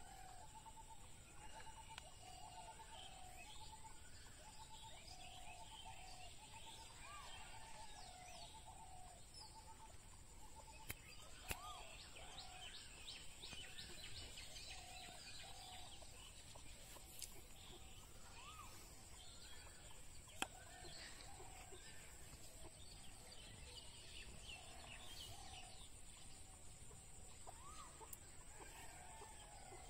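Faint outdoor ambience of birds calling: many short repeated calls with higher chirps over them, a steady high-pitched whine underneath, and a few sharp clicks.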